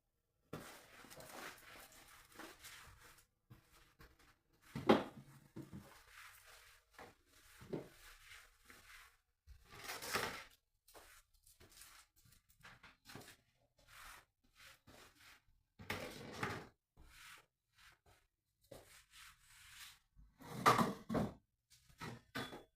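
Irregular household handling sounds: scrapes, rustles and knocks from objects being moved and set down, with a few louder knocks or scrapes about 5, 10, 16 and 21 seconds in.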